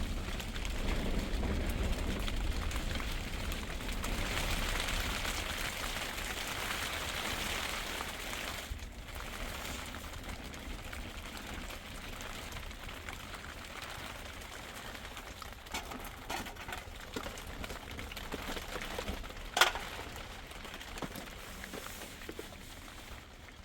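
Steady hiss of falling rain, heaviest at first and gradually easing, with a few small ticks and one sharp knock about twenty seconds in.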